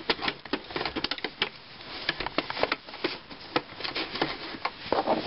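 Irregular clicks and taps from a sewing machine's presser-foot area and the fabric being handled while the machine is not running.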